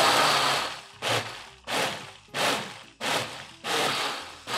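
KitchenAid countertop blender pulsed in short bursts, chopping frozen strawberries: one long run of the motor that stops about a second in, then about six quick pulses, each starting sharply and dying away.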